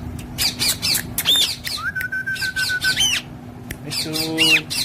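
Parrot chirping in rapid, short high notes several times a second, with a level whistled note held for about a second around two seconds in and a short squawking call near the end.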